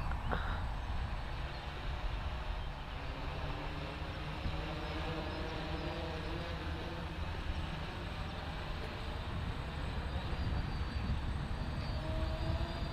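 DJI Flame Wheel F450 quadcopter's brushless motors and propellers humming from a distance, the pitch wavering up and down as it manoeuvres, over a steady low rumble. A single click just after the start.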